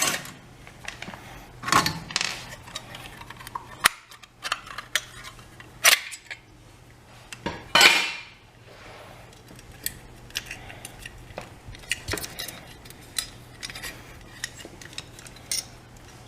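Light metal clinks, clicks and clatters of a dishwasher's electrical junction box and its lid being taken off and handled. The louder clanks come about two, six and eight seconds in, the last one rattling briefly.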